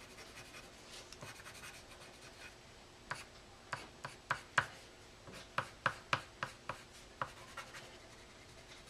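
Red colored pencil scratching on paper: faint shading at first, then a run of short, sharp strokes from about three seconds in until near the end.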